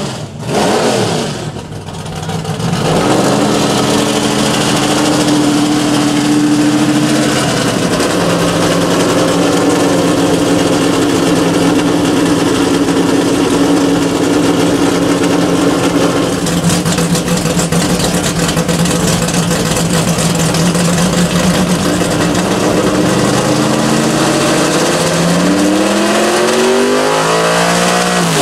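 A muscle car's engine held at steady high revs for a long stretch, with a heavy hiss over it. Near the end the revs climb in a rising sweep as the car accelerates.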